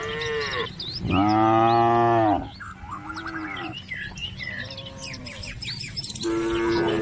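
Cattle mooing repeatedly, about five calls, the loudest and longest a little over a second long starting about a second in. Birds chirp throughout.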